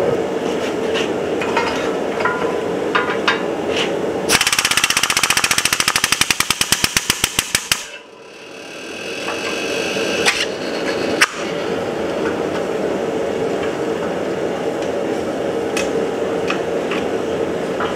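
Air-over-hydraulic shop press pump chattering rapidly, about ten strokes a second, for some three and a half seconds as the ram squeezes hot steel flat, then stopping abruptly. A steady roar runs underneath, with a couple of sharp metal clicks later on.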